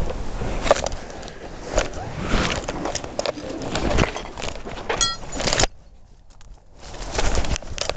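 Scraping, rustling and knocking of a person clambering out through a small window, with a brief squeak about five seconds in.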